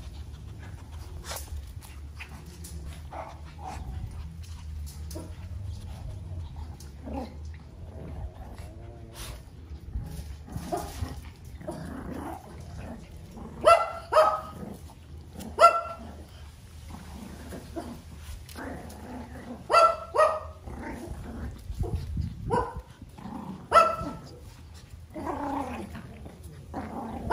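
Small puppies barking in play: scattered quiet yips, then a run of sharp high yaps about halfway through and another a little later.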